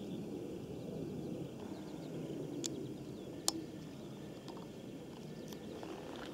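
Open-field outdoor ambience: a steady low rumble with faint bird chirps, and two sharp clicks a little under a second apart near the middle, the second one the loudest.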